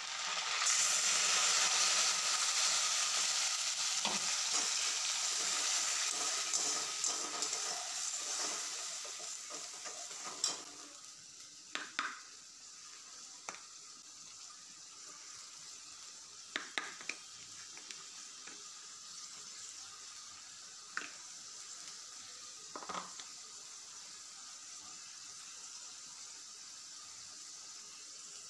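Food frying in hot oil in a wok, sizzling loudly at first and dying down over about ten seconds. A metal spatula then stirs and scrapes in the wok, with a few sharp taps against the pan.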